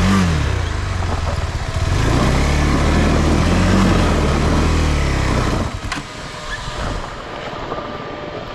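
Motorcycle engine running and revving, its pitch rising and falling, then dropping away about five and a half seconds in to a quieter rumble.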